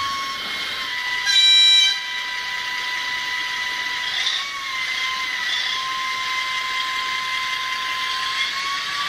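Model H0m diesel locomotive (RhB Gm 4/4) running on track with a steady whine that wavers slightly in pitch. About one and a half seconds in there is a single short horn blast from its sound decoder, the loudest thing heard.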